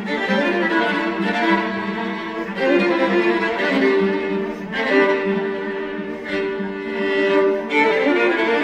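String quartet of two violins, viola and cello playing live with vigorous bowing. Long notes are held in the middle register from about four to nearly eight seconds in, and the texture changes abruptly a few times.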